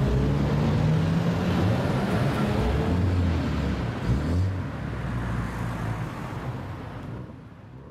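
Exhausts of several lowered older Japanese cars moving off slowly in a line, engines burbling at low revs, with a brief blip of revs about four seconds in. The sound fades away over the last few seconds.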